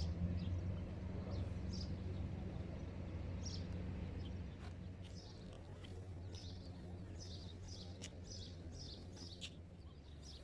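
Many small birds chirping, short high calls coming thick and fast, busier in the second half. Under them a low steady hum fades away over the first few seconds.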